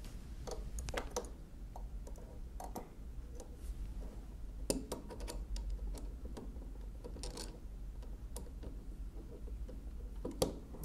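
Light, irregular metallic clicks and scrapes of a screwdriver and pliers working a small screw and nut into the frame of a 1920s Monroe mechanical calculator, over a steady low hum.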